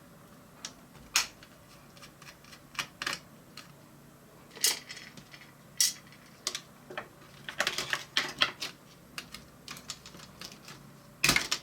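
Scattered light clicks and taps of a screwdriver on small screws, and of the screws and small parts being handled, while screws are undone inside an opened Mac mini G4. A small run of clicks comes about eight seconds in, and a louder knock near the end.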